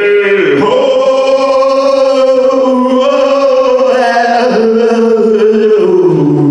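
A man's voice holding one long, loud wordless note into a handheld microphone for about six seconds, chanted or sung, sliding lower in pitch near the end.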